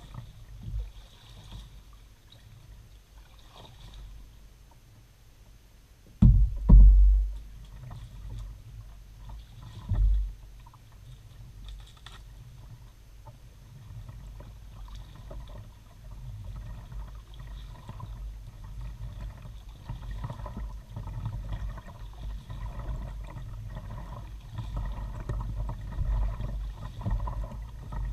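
Kayak moving through calm water, heard from a camera mounted on the bow: low hull and water rumble with faint paddling and rustling. The rumble grows louder in the second half. Two heavy low thumps land about six seconds and ten seconds in.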